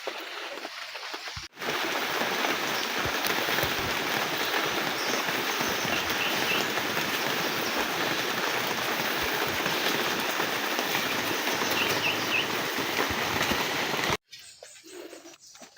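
Heavy rain falling steadily. It starts suddenly about a second and a half in and cuts off abruptly near the end, with a few faint bird chirps heard over it.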